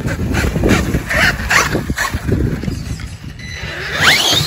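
Losi LMT Grave Digger RC monster truck driven in short throttle bursts: its brushless electric motor whines on and off over the rumble of the tyres on the grass, and near the end the whine rises sharply as the truck accelerates.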